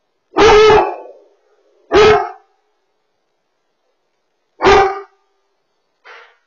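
German Shepherd barking: three loud, short barks spaced a second or more apart, then a fainter fourth bark near the end, picked up by a pet camera's microphone.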